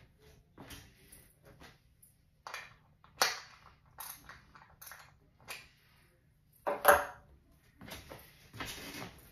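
A small cardboard box and small wooden pieces being handled: scattered rustles and knocks, with two sharper, louder knocks about three and seven seconds in.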